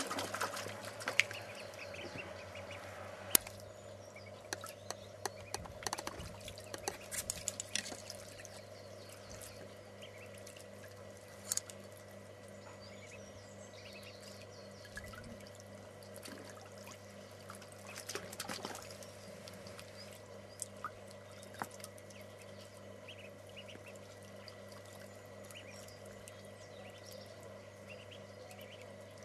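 Ducklings splashing and paddling in a shallow plastic tray of water. Small splashes and drips come busiest over the first several seconds and again briefly about two-thirds through, with a couple of sharp knocks in the first few seconds, over a faint steady hum.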